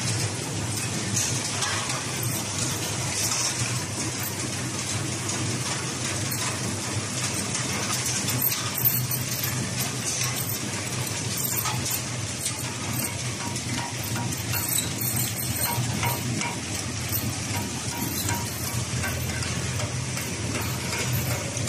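Automatic wafer biscuit packing line running: a horizontal flow-wrap packing machine and its conveyors give a steady mechanical whir over a low hum, with faint light clicking.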